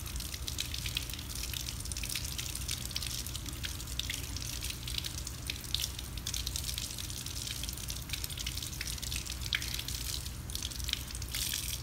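Tap water running into a sink and splashing over a fabric sample rinsed by gloved hands, with many small splashes and drips, until the tap is shut off at the end. The sample is being rinsed of excess bromophenol blue stain.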